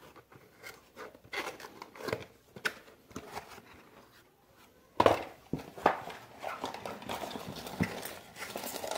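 Small hard plastic parts being handled: scattered clicks and light knocks, then a sharper knock about five seconds in and steadier rustling and scraping, as the keyboard's accessories are picked through to get at the keycap puller.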